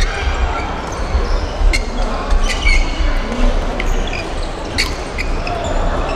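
Badminton play in a large indoor hall: sharp cracks of rackets striking the shuttlecock a few times, and short squeaks of court shoes on the floor, over a steady low rumble of the hall.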